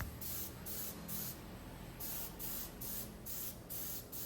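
Paint spray gun spraying a thin colour coat of PU paint in short hissing pulses, about two a second, with a brief pause a little after one second in.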